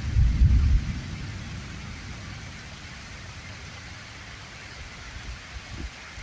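Heavy rain falling steadily onto paved ground, with a loud low rumble that dies away about a second in.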